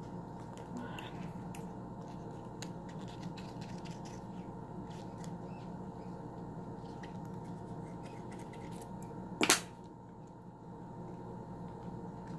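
Faint clicks and scrapes of hands handling and cutting open leathery ball python eggs, over a steady low hum. One brief loud handling noise about nine and a half seconds in.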